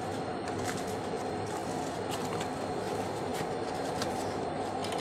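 Steady rushing background noise, with a few faint clicks and rustles from welding goggles and a leather welding glove being handled and pulled on.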